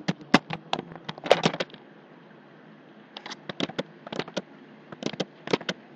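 Typing on a computer keyboard: quick runs of sharp key clicks in several short bursts with pauses between them.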